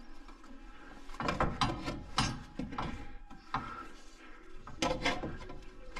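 Irregular metallic clanks and clicks, starting about a second in, as a compressed front coil spring in a spring compressor is worked into a tubular lower control arm.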